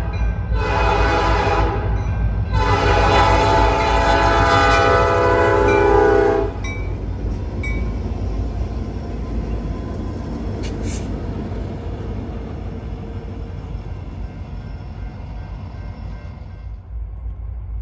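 Norfolk Southern diesel locomotives' air horn sounding for a road grade crossing: a short blast, then a long blast that ends about six and a half seconds in. After the horn, the locomotives' engines and wheels rumble past and fade away.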